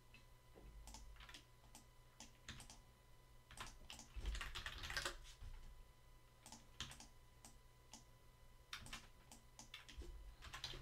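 Faint computer keyboard typing, short irregular clusters of key clicks with pauses between them.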